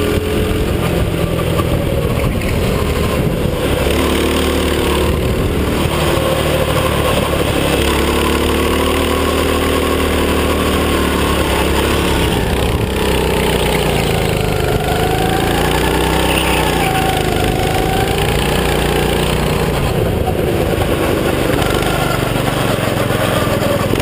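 Go-kart engine running on track, heard from on board, its pitch rising and falling again and again as the kart speeds up and slows through the corners.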